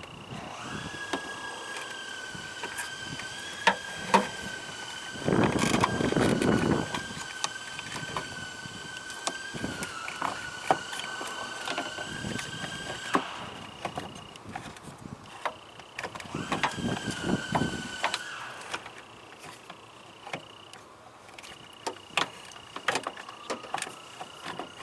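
Plastic clicks, knocks and rattles as a fuse box is handled and refitted in the truck, with a steady high-pitched electronic tone underneath that breaks off briefly a few times.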